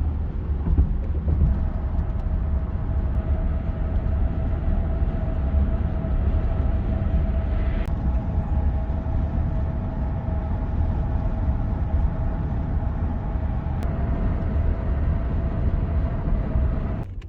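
Steady road noise of a car driving: a low rumble with a faint constant whine above it.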